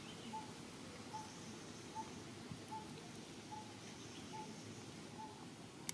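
Faint outdoor ambience: a bird repeats one short, pure note evenly, a little more often than once a second, about seven times. A high hiss comes and goes behind it, and there is a single sharp click at the very end.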